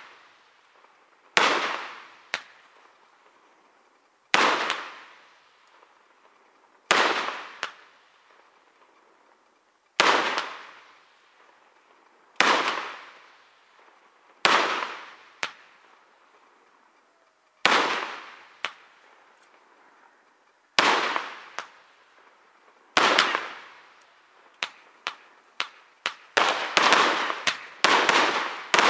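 Aerial firework shells bursting one after another: a sharp bang every two to three seconds, each followed by an echo that dies away over a second or two, with smaller cracks in between. The bangs come in a quicker volley over the last few seconds.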